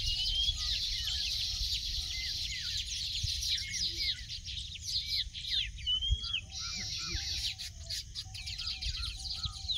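Baya weaver colony chattering: a dense, continuous chorus of chirps and twitters, with a lower short call from another bird repeating about once a second.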